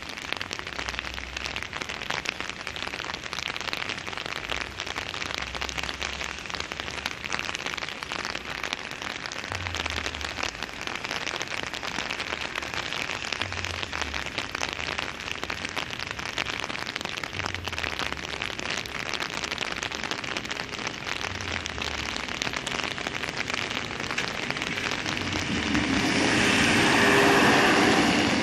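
Steady rain hissing on wet pavement, then a red regional diesel multiple unit crossing close by: its engine and wheels rise from about three seconds before the end and are loudest just before it.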